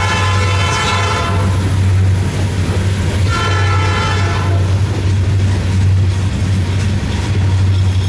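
Diesel locomotive horn sounding as a train passes: one blast that cuts off about a second in, then a second blast of just over a second about three seconds in, over the steady low rumble of the train.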